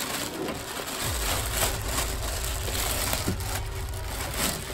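Clear plastic bag rustling and crinkling as it is pulled off a 15-inch car subwoofer, with low rumbling from handling joining about a second in.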